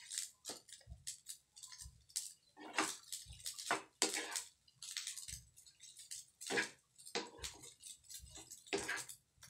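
Wooden spatula scraping and tossing fried rice in a frying pan, in irregular short strokes with brief pauses between them.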